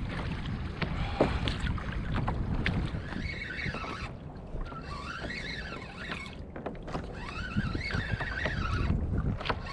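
Wind buffeting the microphone and choppy water slapping against a kayak, with scattered clicks and knocks. Faint wavering cries rise and fall above it through the middle.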